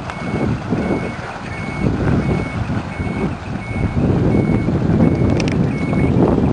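Large flatbed truck's warning beeper sounding a steady string of short beeps, about three every two seconds, over its diesel engine running loudly. The beeps stop near the end.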